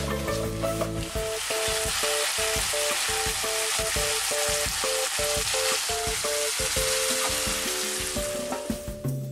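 Chicken thigh pieces and green peppers sizzling in a frying pan over high heat as they are tossed in an oyster-mayonnaise sauce. The sizzle fades away near the end.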